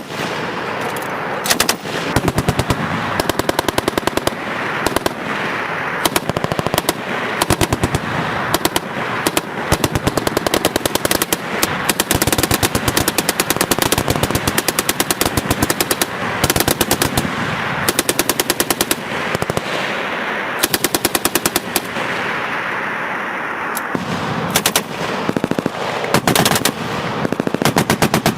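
American machine guns firing long and short bursts of automatic fire, one burst after another with only brief pauses between them.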